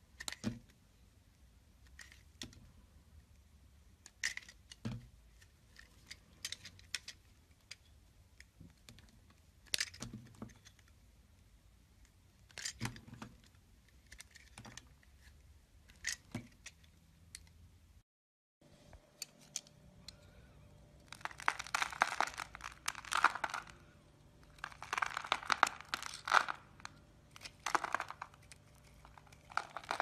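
A utility-knife blade cutting into a bar of soap: sharp, isolated cracks and snaps every second or two as slices break away. After a brief break, there is denser, crumbly crunching in clusters as a dry bar of soap is carved into flakes.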